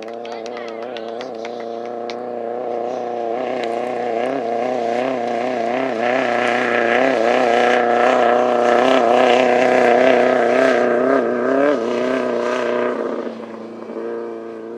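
Class 11 off-road race car, a stock air-cooled Volkswagen Beetle, driving hard past: its engine note wavers up and down as the revs rise and fall, grows louder toward the middle, then drops away about thirteen seconds in.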